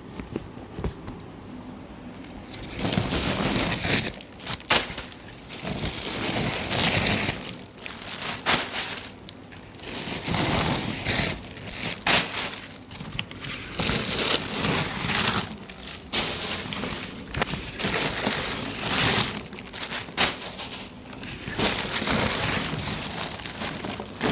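Plastic packaging crinkling and rustling in irregular bursts as craft wires and supplies are handled and pulled out of the packet, starting about two and a half seconds in.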